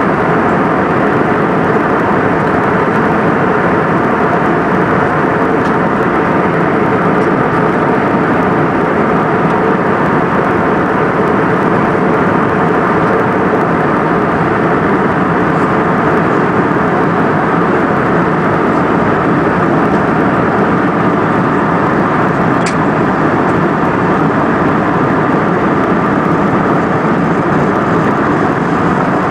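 Steady airliner cabin noise in cruise flight: a constant rushing drone of engines and airflow with a faint steady hum of tones in it. A faint click about three-quarters of the way through.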